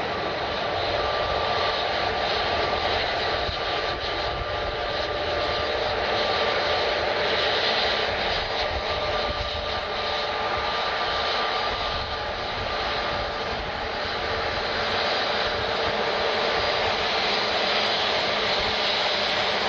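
Jet airliner engines running steadily: a constant rush of noise with thin, steady whining tones over it.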